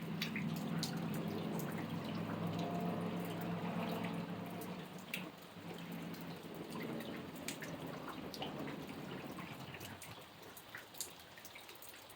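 Rain dripping: scattered drops falling irregularly over a soft water hiss. A low steady hum runs underneath and fades out about eight to ten seconds in.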